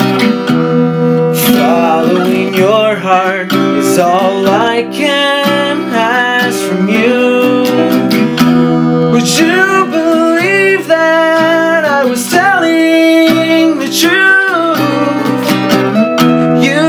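Two acoustic guitars playing together, one strumming chords, in an instrumental passage of a song. A melody line above the chords bends and wavers in pitch.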